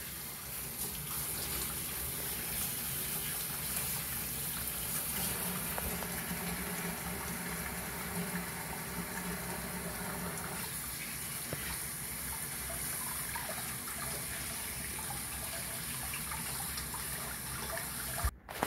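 Kitchen faucet running steadily, the stream splashing into a stainless-steel sink. It cuts off sharply near the end.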